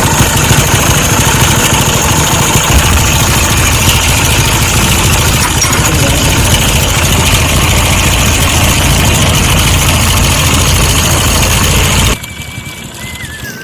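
Motorcycle engine idling steadily and loud, then cut off abruptly near the end, leaving a much quieter sound with a thin wavering tone.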